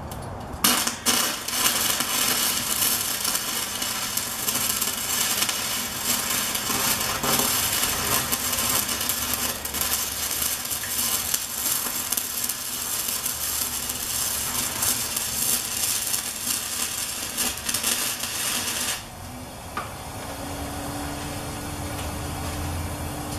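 MIG welding arc laying a weld on steel rectangular tubing: a steady crackling sizzle that starts about a second in and cuts off about four seconds before the end.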